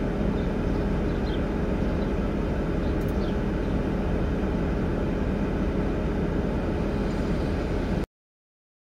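Vehicle engine idling, a steady low hum heard from inside the cab, with a few faint high chirps and one sharp click about three seconds in. The sound cuts off abruptly about eight seconds in.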